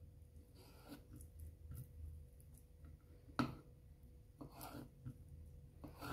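Kitchen knife cutting raw chicken breast into cubes on a wooden cutting board: quiet slicing with a few light knocks of the blade on the wood, the sharpest about three and a half seconds in and another near the end.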